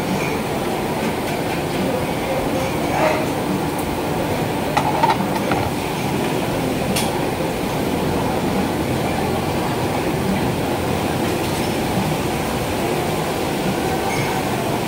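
Open restaurant kitchen: a steady roar from the gas wok burners and ventilation, with a few short clinks of utensils and faint voices in the background.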